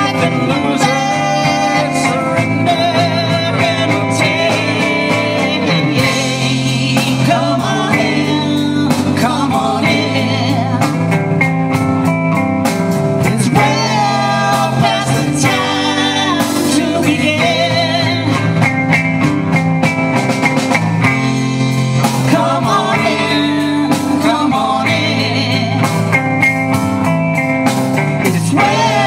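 Live rock band playing a song with vocals: electric bass, drum kit and a singer's voice.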